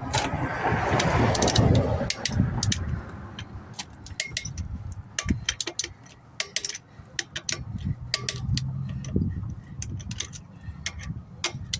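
Scattered metallic clicks and clinks of a ratchet torque wrench working on a car wheel's lug nuts, tightening them to 100 ft-lb. A rustling scrape fills the first two seconds, over a steady low hum.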